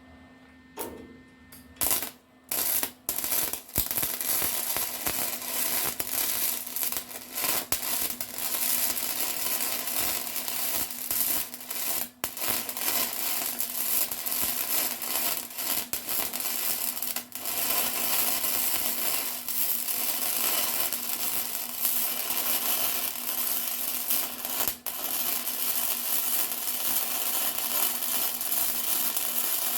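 Electric welding arc crackling and sizzling steadily, with a few stops and starts in the first few seconds and short breaks between beads.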